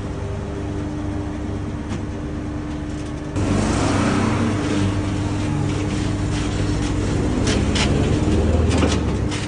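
An off-road buggy's engine runs steadily, then gets suddenly louder about a third of the way in, as if driven harder. Scattered sharp clicks and rattles follow until it eases off near the end.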